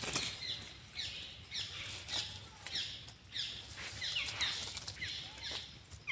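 Short, high, falling chirps or squeaks from an animal, repeated about twice a second, with a sharp click at the very start.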